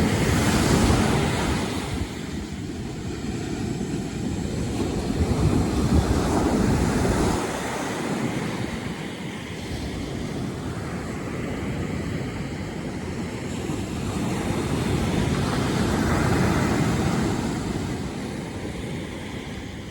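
Sea waves surging and washing in, louder three times: at the start, around five to seven seconds in, and around fifteen to seventeen seconds in. Wind rumbles on the microphone throughout.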